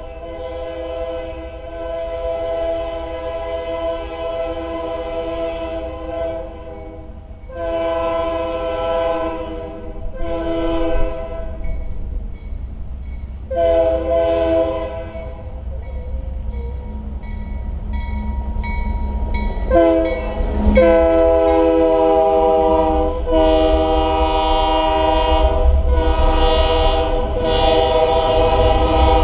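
Multi-chime air horn of an approaching diesel freight locomotive, sounded in the grade-crossing pattern: long, long, short, long. About two-thirds of the way in it sounds again, a short blast and then one long blast, while the low rumble of the passing train grows louder as the locomotives and autorack cars go by.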